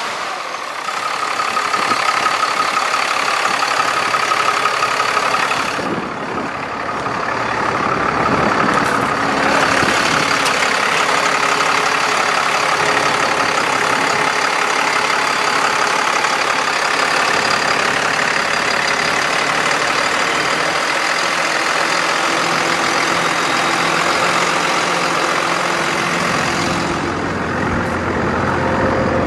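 The engine of a 1999 Ford F-Series mechanics truck idling steadily, heard up close with the hood open, its cooling fan and belts turning.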